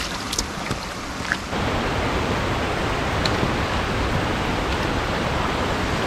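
Mountain creek water rushing steadily over rocks, louder from about a second and a half in, with a few faint clicks.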